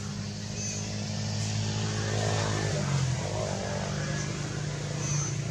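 A motor running steadily with a low hum that shifts in pitch about three seconds in.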